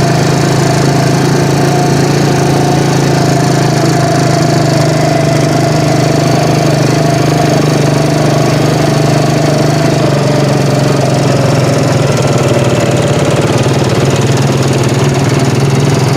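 An engine running at a steady, unchanging speed, loud and close, with a constant low drone.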